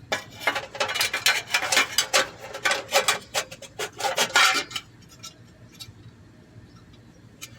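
Sheet-metal catalytic converter heat shield parts clinking and rattling as they are handled, a quick run of sharp metal clinks for about five seconds, then only a few faint ticks.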